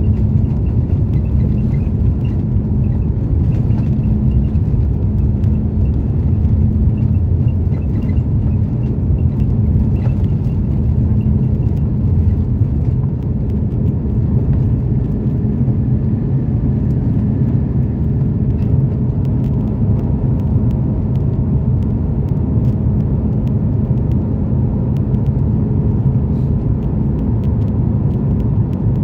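Airbus A330's Rolls-Royce Trent 700 turbofans at takeoff power, heard inside the cabin: a loud, steady rumble through the end of the takeoff roll, lift-off and the start of the climb.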